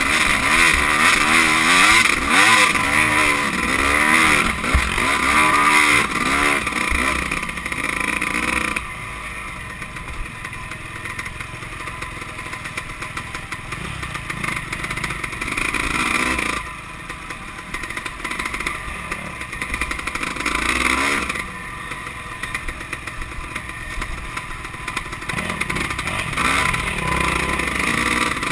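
Dirt bike engine, heard from the rider's own bike, revving hard up and down over rough trail for the first several seconds. It then eases to quieter, lower running, with short bursts of throttle about halfway through, again a few seconds later, and near the end.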